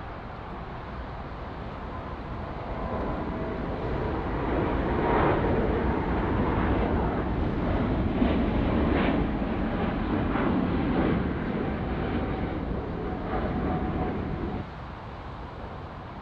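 Jet airliner passing, its engines building to a loud rushing noise with a faint whine, then dropping off sharply near the end.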